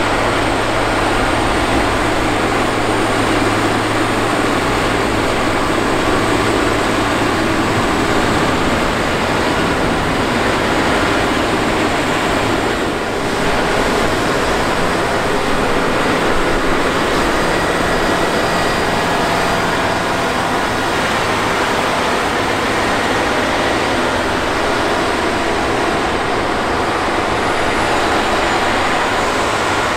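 Diesel engine of a John Deere 9510R articulated four-wheel-drive tractor running steadily under load as it pushes and packs corn silage with a dozer blade, a dense, continuous engine noise.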